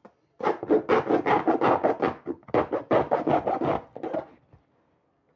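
Packaging being scraped and torn open by hand as a new cricket bat is unboxed: a quick run of rasping strokes, about seven a second, with a short break midway.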